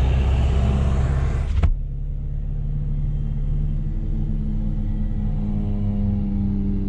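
A loud rushing noise with heavy low rumble cuts off abruptly about a second and a half in. After it comes the steady idle of a John Deere 9660 CTS combine's diesel engine, an even low hum.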